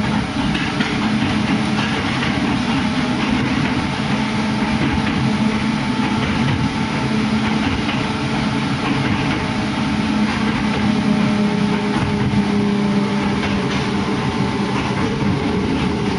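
Hakone Tozan Railway electric train running through a tunnel, heard from inside the car: a loud, steady rumble of wheels on rail with a continuous motor hum.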